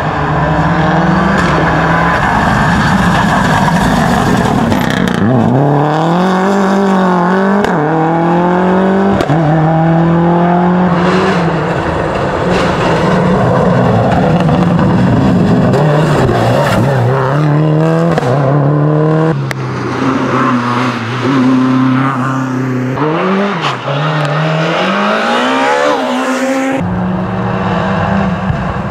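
Subaru Impreza rally cars' turbocharged flat-four engines at full race pace, revving up through the gears and dropping off into corners again and again, with a few short sharp cracks along the way. The sound changes abruptly a few times as it moves from one car's run to the next.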